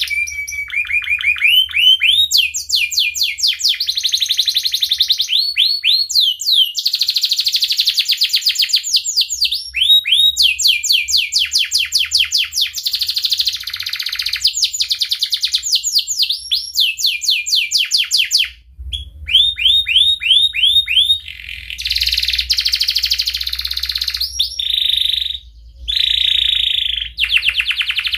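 Domestic canary singing a long, unbroken song of fast trills made of rapidly repeated rising notes, switching from one trill type to the next every second or two. There is a brief pause about two-thirds of the way through, and a few held, steady notes near the end.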